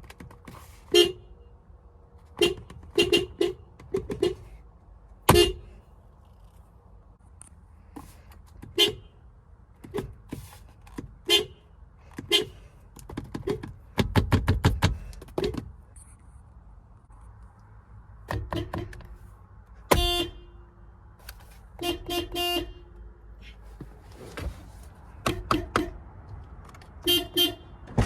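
Subaru car horn honked again and again in short taps at irregular intervals, some in quick clusters of two or three. There is a brief low rumble about halfway through.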